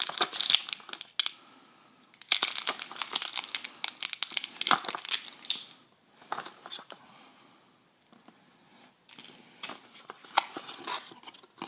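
Plastic packaging bag crinkling and rustling as a coiled charging cable is taken out of it, along with cardboard box handling. The crinkling comes in bursts, heaviest in the first few seconds, then quieter scattered handling noises.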